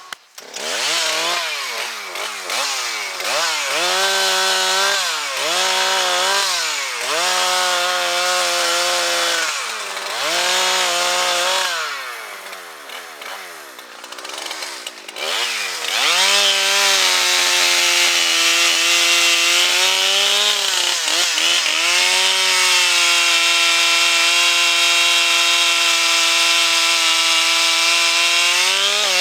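Gas chainsaw revved up and down in repeated throttle blips, then held at steady full throttle from about sixteen seconds in.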